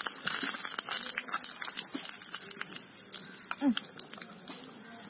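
A small metal spoon clinking and scraping against a miniature clay pot as it stirs. A short falling animal cry comes about three and a half seconds in, and then the clinking stops.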